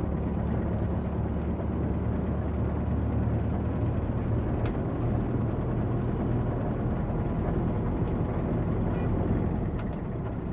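Steady engine and road rumble from inside a moving minibus, with a few faint rattles and clicks.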